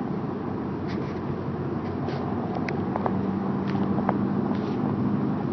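Car driving, heard from inside the cabin: steady road and engine noise. An engine hum holds one pitch from about halfway through, and a few light clicks or rattles come through.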